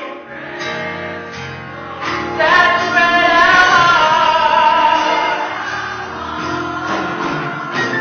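Church choir singing gospel music, women's and men's voices together, swelling louder about two seconds in.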